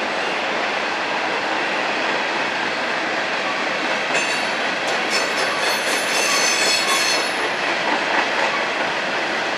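Freight train of coal hopper cars rolling past with a steady rumble of wheels on rail. High-pitched wheel squeal rises over it from about four seconds in and fades out around seven and a half seconds.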